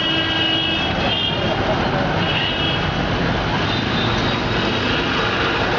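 Steady street noise around a roadside food stall: passing traffic together with an egg omelette frying in oil on a gas-fired tawa. Thin high tones come and go in short stretches.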